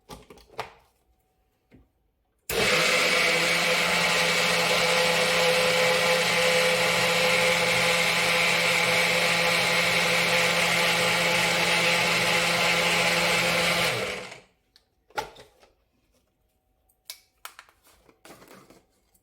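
Electric mixer-grinder blending soft strawberries with yogurt and water into lassi. The motor starts suddenly a couple of seconds in, runs steadily at one speed for about eleven seconds, then cuts off and spins down. A few light clicks come before and after, from handling the jar.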